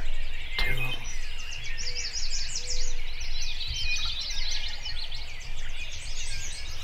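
Dawn chorus of many songbirds: dense overlapping chirps and trills. A low steady rumble runs underneath, and there is a single soft knock about half a second in.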